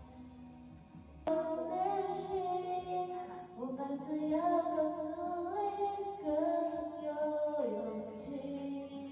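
Background music: a slow melodic song with held notes moving step by step, growing louder about a second in.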